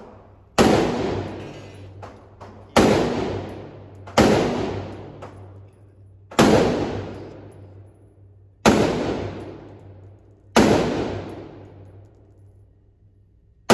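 Six pistol shots at an indoor range, one to two seconds apart, each a sharp crack followed by a long echoing decay.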